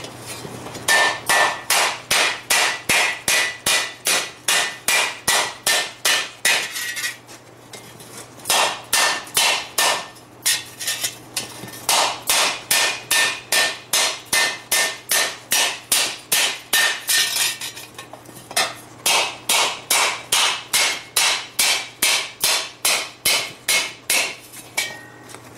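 Mallet blows on a steel frying-pan blank held on a wooden stump, about three sharp strikes a second in runs of several seconds with short pauses, each leaving a brief ring from the steel. The blows hit the center of the dish to work it out and roll the outer edge.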